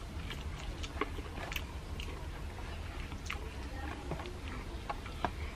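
Chewing and small wet mouth clicks of someone eating fried tiwul (cassava rice) and grilled young jackfruit, with irregular light crackles as fingers pick food from a banana leaf.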